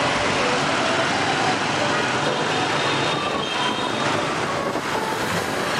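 Steady road noise from riding a motorbike in city traffic: the engine running and a continuous rush of air and other scooters, at an even loudness throughout.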